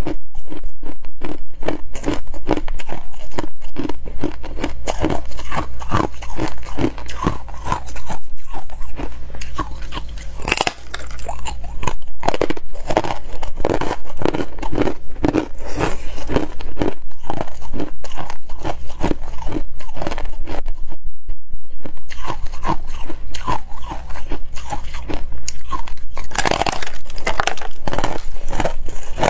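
Frost-covered freezer ice slabs being bitten and chewed, with a steady run of fast crunching chews and a brief pause about three-quarters of the way through.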